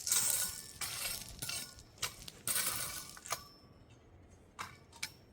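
Repeated scraping strokes through loose stone, about five in a few seconds, with stones clattering and chinking.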